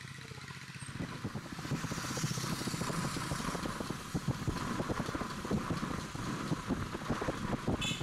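Small motorcycles running on the move along a road. The engine sound builds up about a second in and then holds steady.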